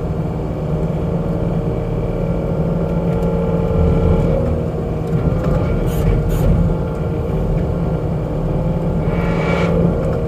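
Diesel engine of a New Holland skid steer running steadily under load while it pushes a fuel tank forward, with two brief knocks about six seconds in.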